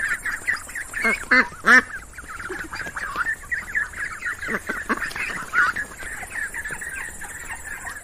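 A flock of ducks quacking, with many calls overlapping in a continuous chatter and a few louder quacks about a second in. The sound cuts off suddenly at the end.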